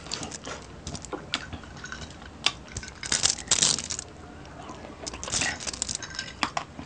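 Close-miked eating sounds: scattered short crunches and clicks of people chewing crispy fried food picked up by hand, thickest about three seconds in and again near five seconds.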